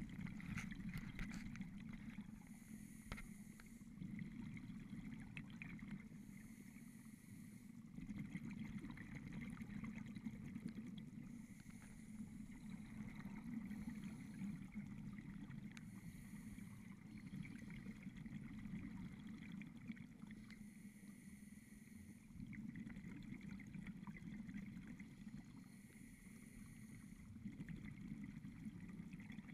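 Scuba regulator breathing underwater: a hiss on each inhalation and a bubbling rush on each exhalation, repeating every four seconds or so.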